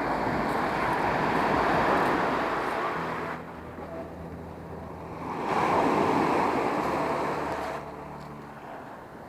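Sea waves surging and washing against rocks, two swells of rushing water a few seconds apart, each building and then falling away.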